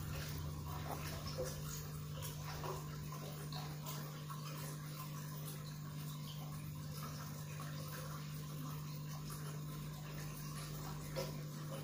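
Aquarium water circulating: faint trickling and light splashing over a steady low hum from the tank's pump, with a brief tap near the end.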